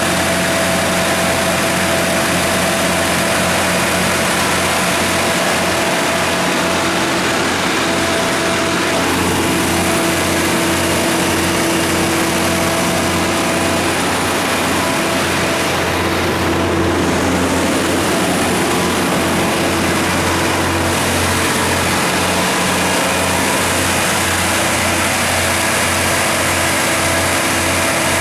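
Katolight 200 kW standby generator set, driven by a Detroit Series 60 natural gas inline-six engine, running at a steady speed with a constant low hum and mechanical noise.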